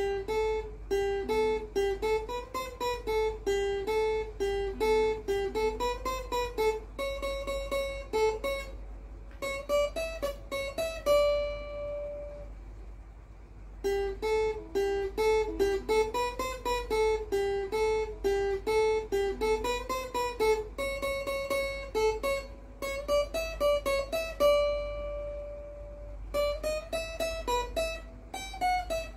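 Acoustic guitar playing a picked single-note melody, each note plucked separately, with a short pause about halfway through before the phrase comes round again.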